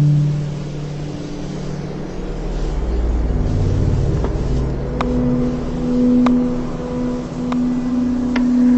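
Dark horror ambience: a low rumbling drone of sustained tones that shift and swell. From about four seconds in, sharp isolated ticks sound roughly once a second, five in all.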